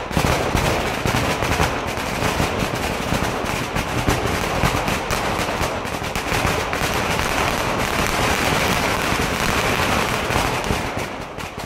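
A long hanging string of firecrackers going off in a rapid, continuous chain of sharp bangs, dozens a second.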